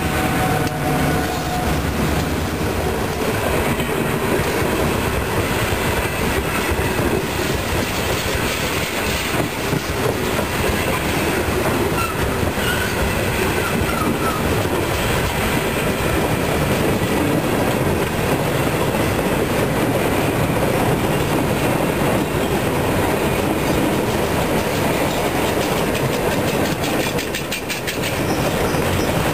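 Freight cars rolling past at close range: a steady rumble of steel wheels on rail, with clickety-clack over the rail joints. The engine of the trailing GP38-2 diesel locomotive is heard near the start as it moves off.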